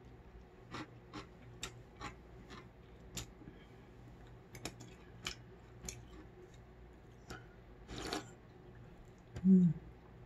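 Close-miked chewing of crisp food in a mouthful of cold noodles, a run of short, sharp crunches about two a second. A short hummed 'mm' comes near the end.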